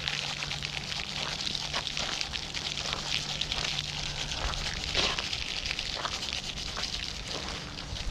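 De-icing granules scattered from a shaker jug onto an icy concrete sidewalk, landing in a dense, steady crackling patter; the walk is being treated to keep it from icing over.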